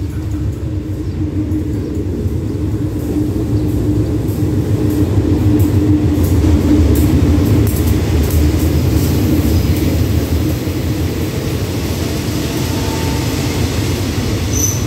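GEA-class GE diesel-electric locomotive no. 4539 arriving along the platform with its diesel engine running, a steady low hum that grows louder until it passes about halfway through. After that its passenger coaches roll by and the sound eases off a little.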